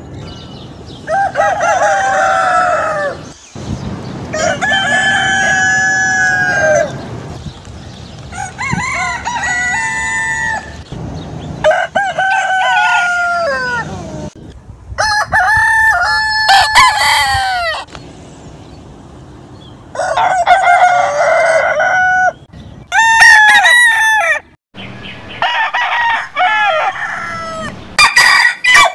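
Roosters crowing one after another: about nine separate cock-a-doodle-doo crows, each one to three seconds long, several ending in a falling glide, from different birds.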